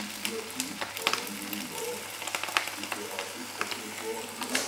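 Noodles sizzling in a hot wok as they are stir-fried, with a metal utensil clicking and scraping against the pan at irregular moments.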